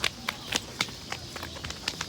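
Running footsteps, short sharp steps about four a second.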